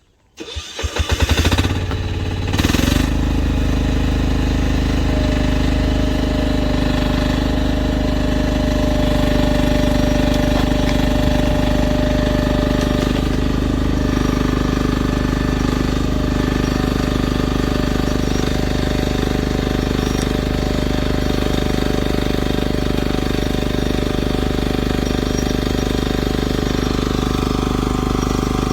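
Rhinoceros Windstorm XN10 mini excavator's engine starting: a short burst of cranking, the engine catching and revving about a second in, then running steadily.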